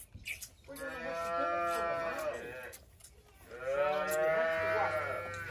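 Calves bawling in two long calls about a second apart, the second louder.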